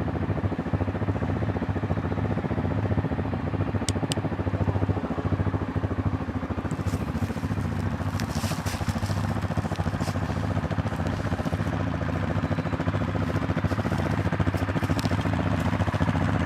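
A four-wheeler (ATV) engine running steadily at an even pitch, with light clicks and rattles added from about halfway through.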